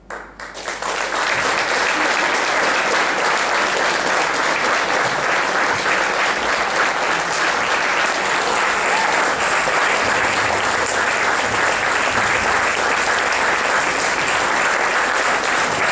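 Audience applauding. It breaks out suddenly, fills out within about a second, and then goes on steadily.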